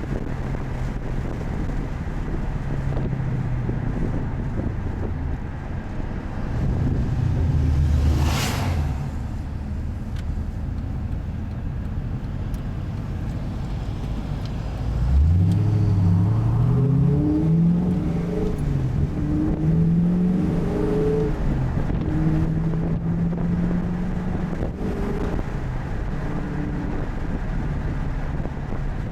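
Pontiac GTO's LS2 V8 with a Spintech cat-back exhaust and Kooks long-tube headers, heard from inside the cabin. It cruises at a steady drone, then about halfway through accelerates hard, the pitch climbing sharply and stepping through a few gear changes before it settles into a steady cruise.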